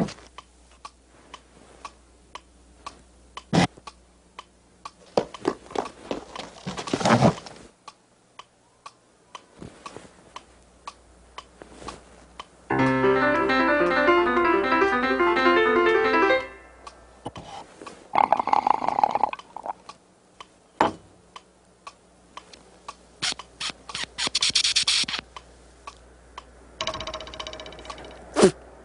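Scattered small clicks and knocks, with a burst of fast piano playing lasting about four seconds a little under halfway through.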